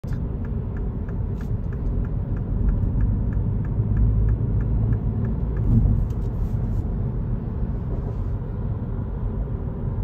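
Steady low road and engine rumble inside a car moving along an expressway, with a light regular ticking about four times a second during the first half.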